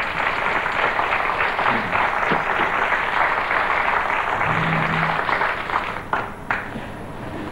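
Studio audience applauding, starting suddenly and dying away about six seconds in.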